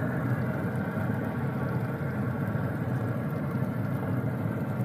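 Steady low mechanical drone, such as a fan motor running, with faint steady tones over it and no sudden sounds.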